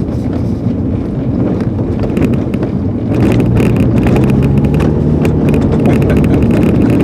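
Gen3 Subaru Legacy's boxer engine running steadily with tyre and road noise on a rough dirt track; about three seconds in it gets louder and a run of sharp knocks and rattles sets in as the car goes over bumps and gravel.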